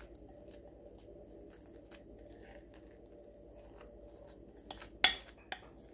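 Metal spoon stirring grated raw potato and flour in a glass bowl, with a soft, irregular scraping through the mixture and one sharp click about five seconds in.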